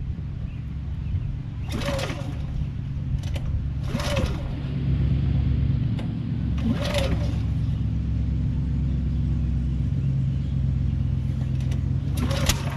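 Portable generator's small engine running steadily, its note and level rising about four and a half seconds in as it picks up speed. A few short sharp sounds stand out above the running engine.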